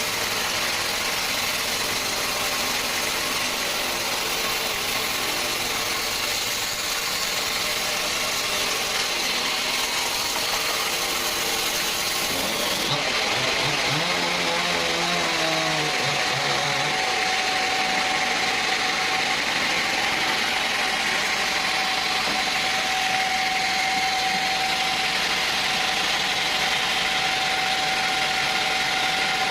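Sawmill machinery running steadily, a loud mechanical drone; about halfway through its pitch shifts and settles into a steady whine.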